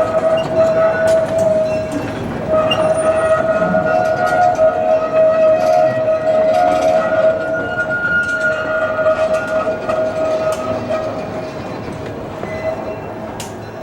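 The 0-4-0 locomotive's whistle blowing a long, steady note, cut off briefly about two seconds in and then held again before fading near the end, over the clicking of the train cars.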